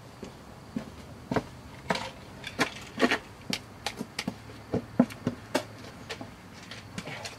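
A string of short, irregular knocks and scuffs, about one a second at first and coming faster after a few seconds, fitting footsteps on pavement and a shotgun being picked up and handled.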